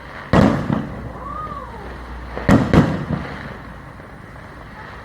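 Aerial fireworks shells bursting: one loud bang about a third of a second in, then two more in quick succession about two and a half seconds in, each trailing off in a rumbling echo.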